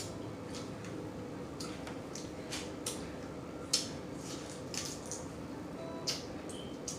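Wet mouth smacking and chewing while eating blue crab meat: irregular short, sharp smacks, the loudest about four seconds in.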